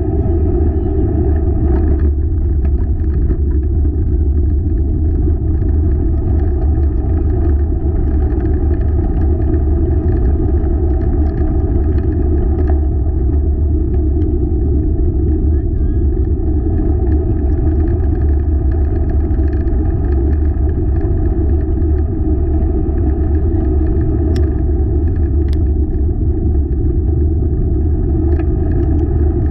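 Steady rumble of a wheeled dog rig rolling along a trail at speed, unbroken throughout.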